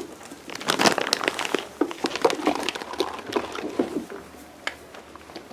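Irregular crinkling and crunching: a quick string of short clicks and rustles, busiest in the first half.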